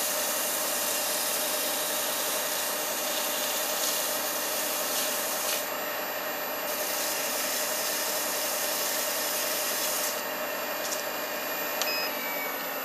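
Abrasive paper held against a small wooden yoyo half spinning in the chuck of a Record Power Coronet Herald wood lathe, sanding it smooth between grits. The scraping hiss comes in two spells with a short break about five and a half seconds in and stops about ten seconds in, while the lathe keeps up a steady hum.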